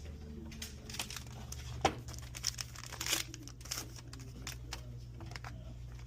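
Rustling and crinkling of a wipe being rubbed over a phone's screen to dry off water, with scattered small clicks and a steady low hum underneath.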